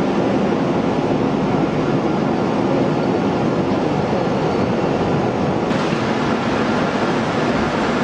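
Okuma CNC machine machining a crankshaft: a steady, dense run of machining noise with faint held tones, the higher hiss stepping up about six seconds in.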